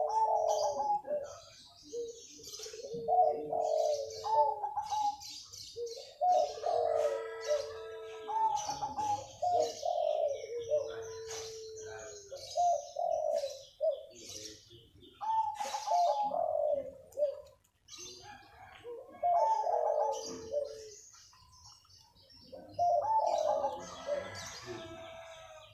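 Local-strain zebra dove (perkutut) cooing vigorously, giving phrase after phrase of rolling, bubbling coos, some ending in a long held low note, with short pauses between groups. Higher chirping runs over the coos.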